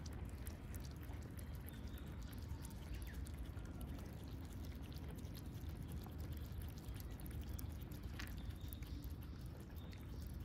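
Cats lapping milk from a plate: a continuous run of quick, small wet clicks, over a steady low background rumble.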